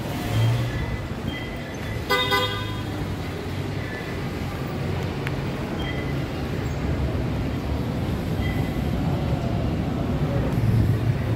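Steady rumble of street traffic from below, with a single short vehicle horn honk about two seconds in.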